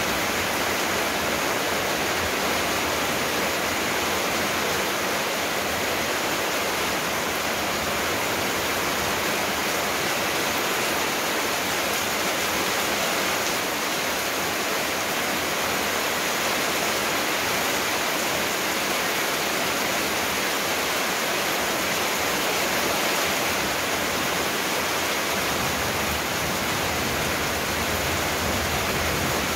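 A steady, even rushing hiss that does not change, like static or falling water.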